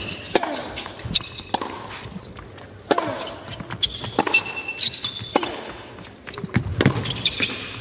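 Tennis rally on an indoor hard court: racket strikes on the ball every second or two, with ball bounces and rubber-soled shoes squeaking on the court surface, loudest about four to five seconds in.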